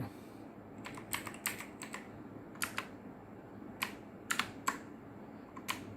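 Keys of a Langtu X6000 mechanical gaming keyboard clicking under slow, uneven typing: about a dozen separate keystrokes, some in quick pairs.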